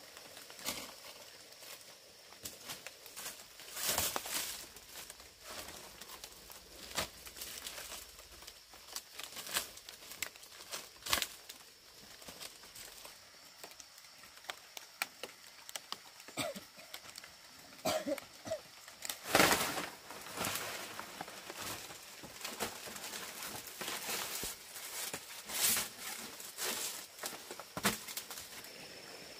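Dry palm leaves rustling and crackling as they are handled and laid as roof thatch, in irregular crunches, the loudest a little past the middle.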